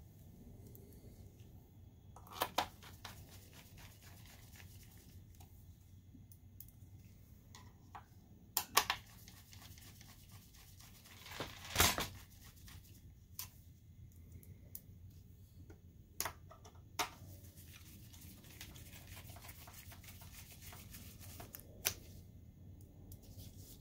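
Scattered clicks and knocks of a hand tool and parts against the opened projector's metal and plastic chassis as parts are set back into position, about seven in all, the loudest about twelve seconds in.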